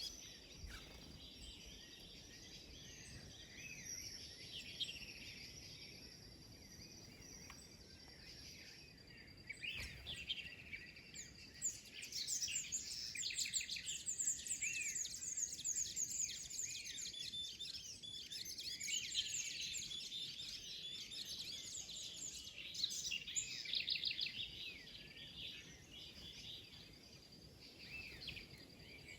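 Many small birds chirping and calling together in quick, overlapping notes, thickest through the middle, over a thin steady high tone.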